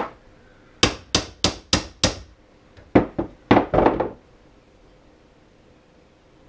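Hammer tapping a roller pin into an Arctic Cat roller secondary clutch, metal on metal: a single tap, then five even taps about three a second, then after a short pause about half a dozen more in quick succession. The pin is being started into place through the roller and washers.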